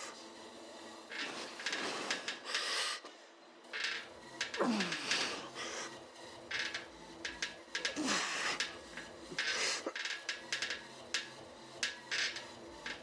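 Hard, hissing exhales with each rep of a set of chest-supported dumbbell rows, coming every second or two, twice with a short falling groan. Light clicks from the plate-loaded dumbbells come in between.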